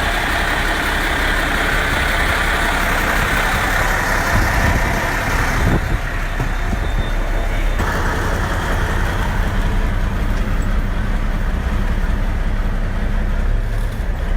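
Motor vehicle running, a steady low engine rumble with a hiss of road or rain noise that eases about six seconds in.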